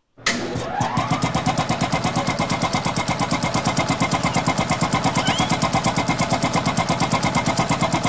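A motor starting up with a rising whine over its first second, then running at a steady, rapid pulse of about ten beats a second, cutting off abruptly at the end.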